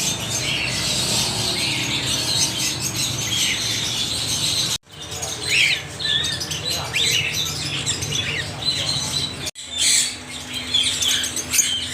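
Several parrots chirping and squawking in quick, overlapping calls, over a low steady hum. The sound breaks off abruptly twice, about five and about nine and a half seconds in, and resumes each time as a new stretch of calls.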